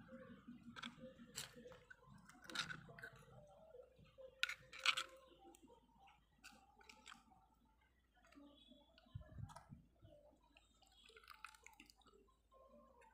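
A small steel spoon stirring fish pieces in a wet paste inside a miniature clay pot: faint, scattered clicks and scrapes of the spoon against the clay with soft wet mixing sounds, the loudest a few seconds in. A soft low thump comes about nine seconds in.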